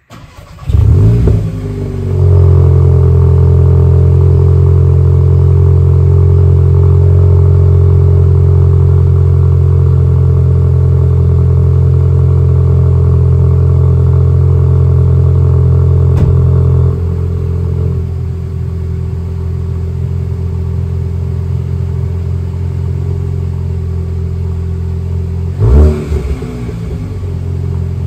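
Volkswagen Golf 8 GTI's EA888 2.0-litre turbocharged four-cylinder cold-starting in sport mode with the exhaust valves open: a short start and flare, then a loud, steady fast idle at the tailpipe. About 17 seconds in, the exhaust valves close and the idle becomes noticeably quieter, with a brief louder burst near the end.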